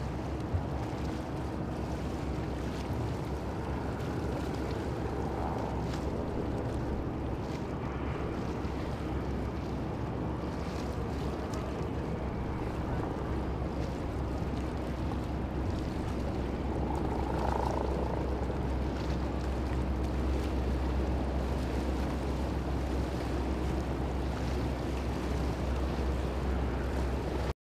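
Steady wind on the microphone over the low drone of a boat engine and the wash of river water.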